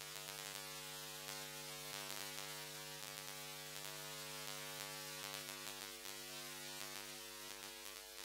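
Handheld angle grinder running at speed, a steady, even hum with a high hiss above it.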